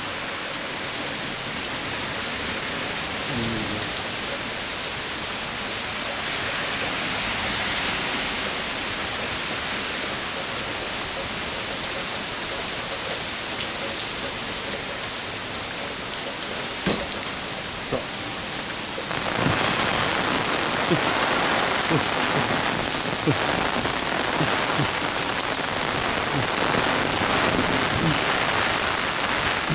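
Heavy typhoon rain falling steadily, with scattered close drops ticking; it gets louder about two-thirds of the way through.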